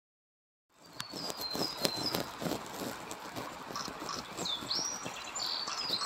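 Black-faced bunting singing: short, high chirping phrases with a few slurred notes, starting a little under a second in, over a light hiss of background noise with a few sharp ticks.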